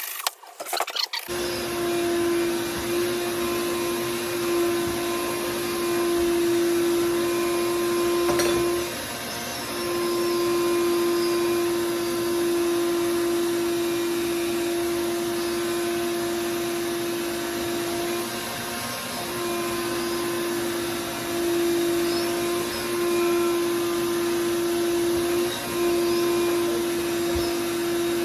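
A few short scrapes or knocks, then a small electric motor starts about a second in. It runs steadily with a strong hum for the rest of the time, dipping briefly a few times as if it is being loaded.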